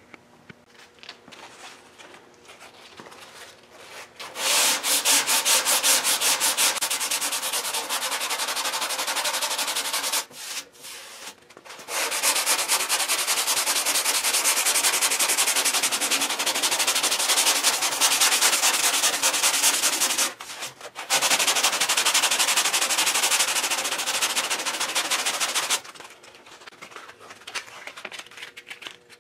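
Hand block sanding of body filler on a car fender with 100-grit sandpaper: quick, scratchy back-and-forth strokes in three long spells of about six, eight and five seconds, with short pauses between. Only faint rubbing in the first four seconds and the last three.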